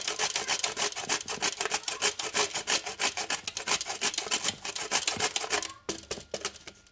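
A beet grated on a flat metal grater over the bowl: quick, even rasping strokes, several a second, that stop about six seconds in.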